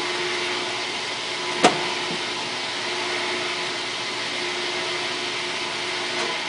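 1958 GE MobileMaid dishwasher running its wash cycle: water spraying steadily over a humming motor, with one sharp click about a second and a half in and a fainter one near the end.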